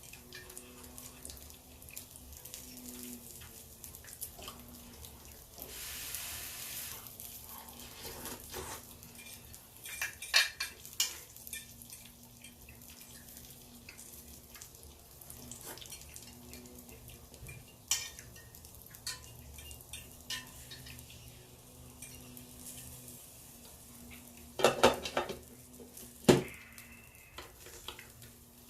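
Cutlery clinking and scraping against dishes now and then, the loudest clatter coming about 25 seconds in, over a faint steady hum.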